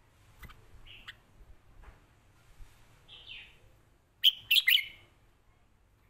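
Caged red-whiskered bulbul calling: a few short notes and a falling note, then a loud burst of three or four sharp chirps about four seconds in.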